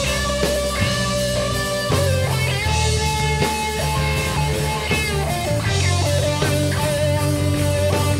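Live rock band playing an instrumental passage: electric guitar holding and bending notes over a four-string Fender bass and drums, with cymbal crashes about every three seconds.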